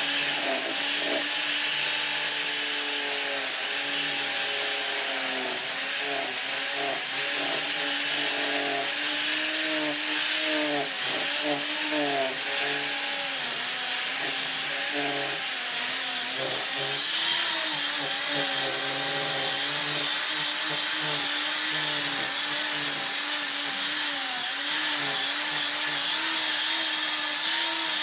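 Electric angle grinder with a sanding disc running continuously, sanding ipil wood. Its whine wavers in pitch as the disc is pressed into and eased off the wood.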